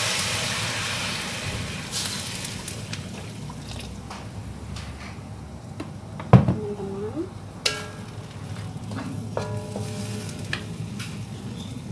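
Warm water hitting a hot wok of stir-fried chayote, sizzling and steaming, the hiss dying down over the first couple of seconds into a quieter simmer. A sharp knock about six seconds in, then stirring in the wok.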